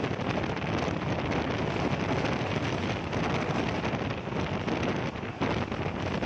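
Pakistan Railways passenger train running at speed, heard from aboard: a steady rumble of the wheels on the rails mixed with wind rushing over the microphone.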